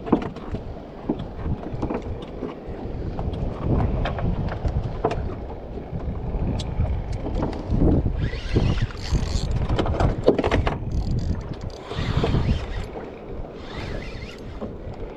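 Wind buffeting the microphone and water moving around a small boat's hull, with scattered small clicks and knocks from fishing rod and reel tackle being handled. The rushing gets louder between about eight and thirteen seconds in.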